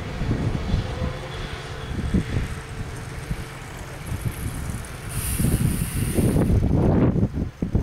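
Diesel railcar running as it moves off along the narrow-gauge track, heard under wind buffeting the microphone. The rumble swells in gusts in the second half, with a brief high hiss about five seconds in.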